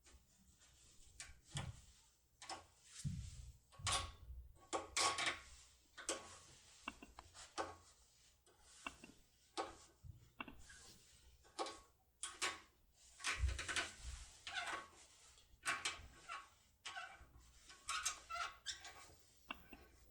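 Irregular faint metallic clicks and scrapes of a Dierre New Power semi-force pick being gradually rocked back and forth in a Dierre cylinder lock.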